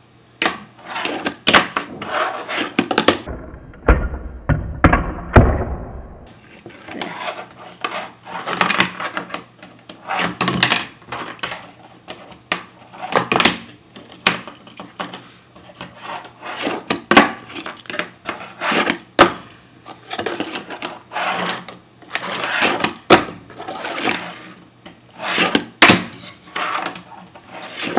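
Tech Deck fingerboard clacking on a table-tennis table top and a cardboard ramp: irregular sharp clacks of the board being flicked, flipping and landing, with scraping and rolling between. From about three to six seconds in there is a muffled stretch with a low rumble.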